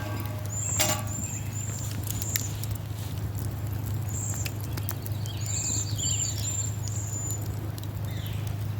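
Small birds calling in runs of short, very high notes, one run about a second in and another longer one from about five and a half seconds, over irregular footsteps and a steady low hum.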